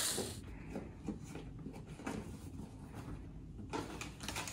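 Faint handling sounds: light knocks and rustles as a cardboard box and the plastic storage case of a hair-styling kit are handled.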